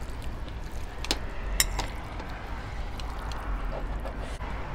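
Quiet mealtime sounds: a few light clicks of chopsticks and a spoon against plates about a second in, and soft wet sounds of black bean noodles being served and eaten, over a low hum.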